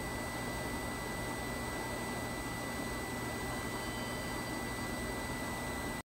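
Steady electrical hum and hiss with a thin, faint high-pitched whine held at one pitch, cutting off suddenly at the end.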